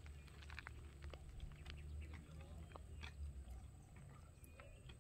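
Faint outdoor background: a steady low rumble with scattered faint ticks and chirps.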